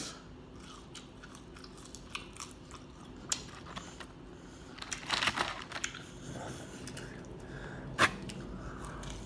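Close-up chewing and biting of fried fast food, with small crunches and a dense run of crunching about five seconds in. A single sharp click about eight seconds in is the loudest sound.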